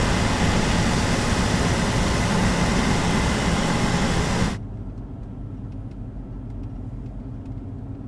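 Vehicle driving on the road: loud, even road and wind noise, which cuts off abruptly about four and a half seconds in to a quieter, steady low hum.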